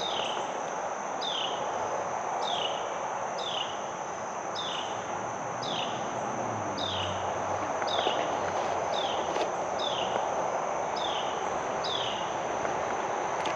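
Woodland ambience: a steady high-pitched insect drone, with a short descending chirp repeating about once a second.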